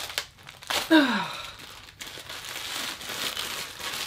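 Thin clear plastic bag crinkling as it is pulled open and handled. About a second in there is a short voice sound that falls in pitch.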